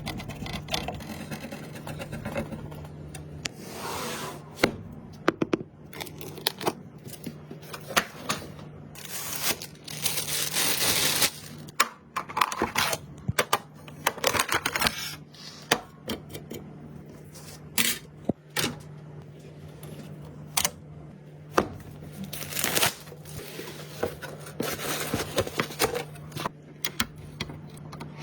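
Irregular clicks, taps and scrapes of computer parts being handled and fitted together by hand, with several short bursts of rustling, over a steady low hum.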